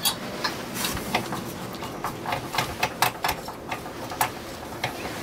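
Irregular small metallic clicks and ticks as a propane hose's brass fitting is threaded by hand onto the inlet of a Volcano stove's propane burner kit.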